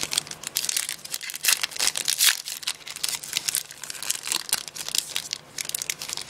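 Foil Yu-Gi-Oh! booster pack wrapper crinkling and crackling as it is handled, mixed with cards being gathered and stacked: a dense run of irregular crackles, loudest about one and a half to two seconds in.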